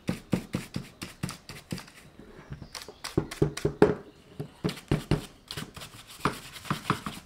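Small brush scrubbing sawdust and dirt out of the chain and bar housing of a battery pruning chainsaw, in quick irregular strokes several times a second.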